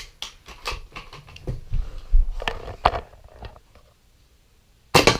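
Scattered light clicks and knocks of plastic toys being handled, then one short, loud, sharp noise near the end.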